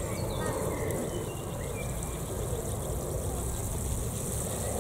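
Water pouring from a watering can's rose onto soil around seedlings, a steady sprinkling patter.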